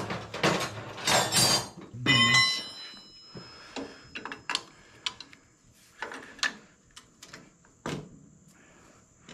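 Loud knocks, then a hammer striking steel with a clear metallic ring about two seconds in, followed by scattered lighter taps and clinks: the hammer is driving out the rigid fork studs of a Harley springer front end.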